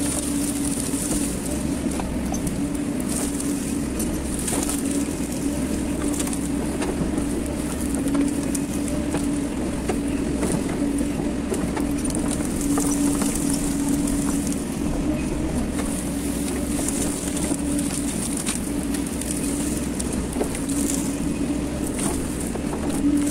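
Hydraulic excavator's diesel engine running steadily under working load while the arm and bucket move, heard from the operator's cab, with a few faint clicks and scrapes from the bucket in the brush.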